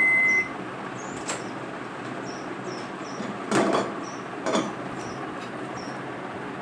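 A microwave oven's beep, one steady high tone lasting about half a second. A click follows about a second in, then two short clatters around the middle, over steady background noise.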